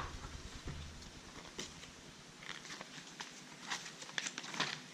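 Paper and cardboard rustling with scattered light clicks, as packaging inserts such as manuals and leaflets are handled.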